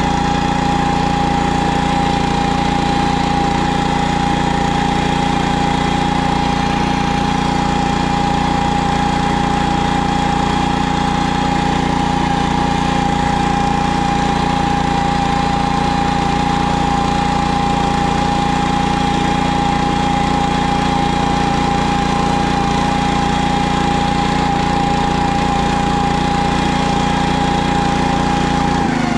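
PermaGreen stand-on spreader-sprayer's small engine running at a steady speed as it drives across the lawn, with a steady high whine over the engine note. The engine's note drops right at the end.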